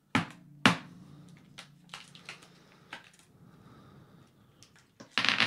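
Small plastic game dice tumbling out of a cardboard box onto a tabletop: two sharp clacks near the start, then a scatter of lighter clicks that thins out as the dice settle.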